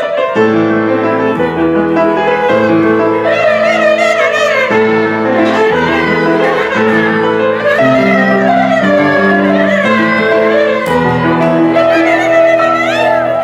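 Instrumental music: a wavering bowed-string melody over piano chords that change about once a second.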